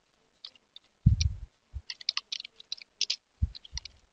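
Typing on a computer keyboard: irregular key clicks, with a few duller low thumps among them, the loudest about a second in.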